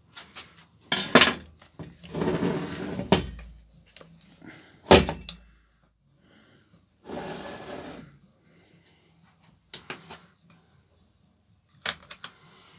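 Clunks, knocks and scraping as a chainsaw is handled, turned over and shifted on a metal workbench while a plastic handle part is taken off. There are a few sharp knocks, the loudest about five seconds in, and two longer scraping stretches.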